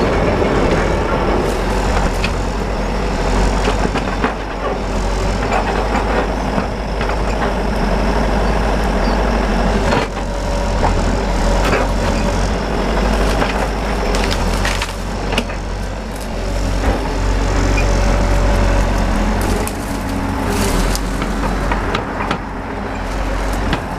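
Excavator-mounted branch trimmer cutting through tree branches, wood cracking and splintering again and again over the excavator's steady diesel engine running.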